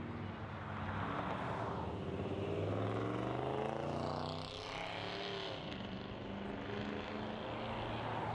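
A classic pickup truck's engine approaching and driving past on a road, its note rising as it nears and dropping as it passes about four to five seconds in, over tyre and traffic noise.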